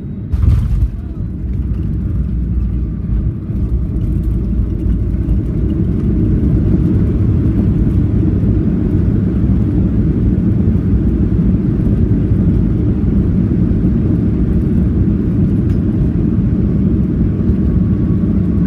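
Boeing 737 landing: a sharp thump about half a second in, then a steady low rumble that grows louder over the next few seconds and holds.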